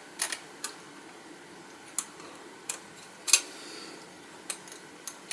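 Scattered light clicks and taps of small metal toy-tank parts being handled and adjusted, about eight in an irregular run, one a little louder about three seconds in.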